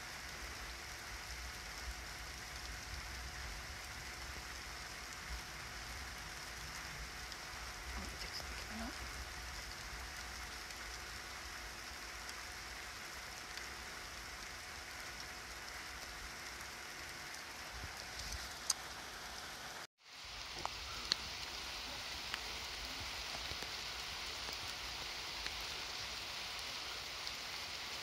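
Light rain falling steadily on surfaces, with a few sharp drop ticks. The sound cuts out for an instant about twenty seconds in, then resumes.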